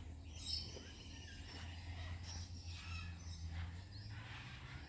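Quiet background: a steady low hum with faint, short high chirps scattered through it.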